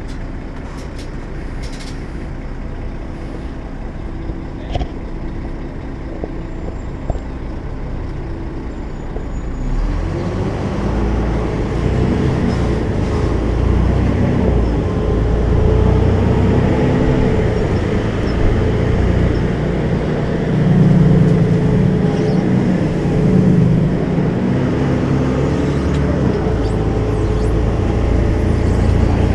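Volvo B12M bus's 340 hp diesel engine running steadily, then about ten seconds in growing clearly louder and fuller as it is put under load.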